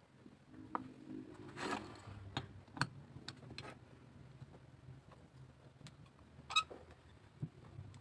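Faint workbench handling clicks and knocks as a metal C-clamp is fitted over a glued wooden ring and its screw turned, with a short scrape early on and one sharp metallic clink about two-thirds of the way through.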